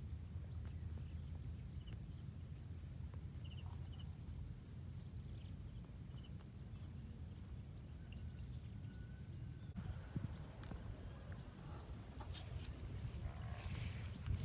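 Outdoor ambience: a faint low rumble of wind, with short high chirps repeating about every half-second and a thin steady high whine above them.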